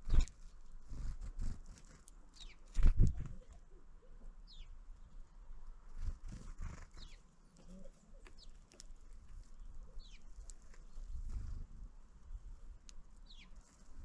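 Small birds at a feeder: knocks and pecking taps on the wood, with two louder thumps near the start and about three seconds in. About six short, high call notes, each sliding downward, come at intervals.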